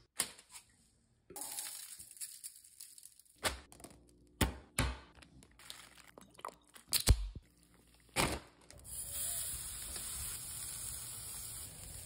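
A run of sharp clicks and knocks from food prep being handled, then, about nine seconds in, the steady sizzle of thin-sliced brisket skewers over hot charcoal.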